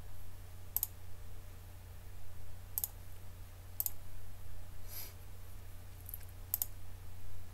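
Computer mouse button clicks, about six sharp single clicks at uneven intervals, over a steady low hum.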